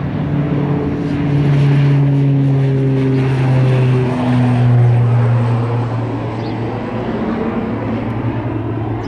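Cessna 425 Conquest I twin turboprop, its Pratt & Whitney PT6A engines at takeoff power as it lifts off and climbs away. A loud propeller drone drops in pitch about four seconds in as the plane passes, then eases off as it climbs out.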